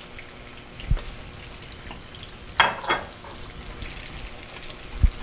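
Wire whisk stirring a thick mayonnaise-based aioli in a stainless steel bowl, knocking against the bowl twice in quick succession about two and a half seconds in. A dull bump comes about a second in and again near the end. Breaded zucchini deep-frying in oil gives a steady sizzling hiss underneath.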